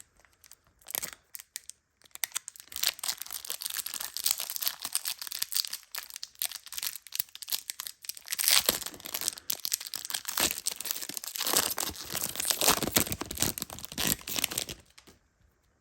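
Foil wrapper of a Pokémon card booster pack crinkling and tearing as it is handled and opened, a dense run of crackles that stops near the end.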